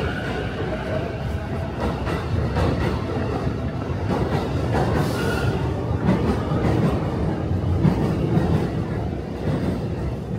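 Commuter train rumbling and clattering along the tracks, heard from the station concourse as a steady low rumble that swells a little through the middle.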